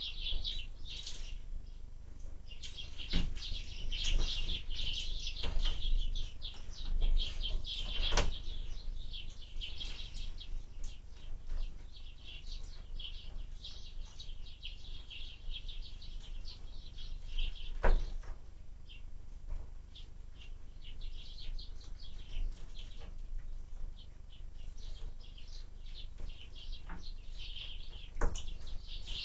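Small birds chirping rapidly and almost without pause at a window bird feeder, with a few sharp knocks: about three, eight, eighteen and twenty-eight seconds in. A low wind rumble runs underneath.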